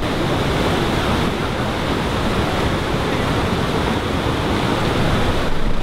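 Steady rushing of a fast mountain river over rocks.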